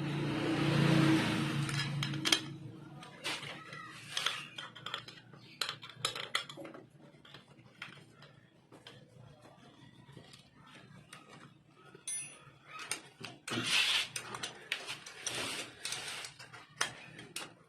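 Metal hand tools and small parts clicking and clinking against a motorcycle engine's cylinder head as the valve cover and its screws are fitted, with a stretch of hiss and low hum in the first two seconds.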